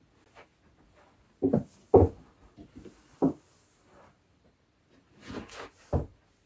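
Handling noise: a few scattered knocks and thumps, the loudest about two seconds in, and a brief rustle about five seconds in.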